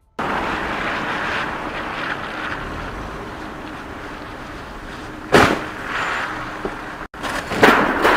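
Steady road noise with two sudden loud bangs, one about five seconds in and another near the end after a brief dropout: the impact of a car crash at an intersection.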